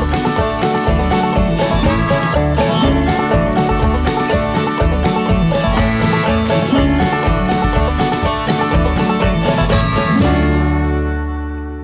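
Background instrumental music with plucked strings in a country or bluegrass style, ending on a chord that rings out and fades about ten seconds in.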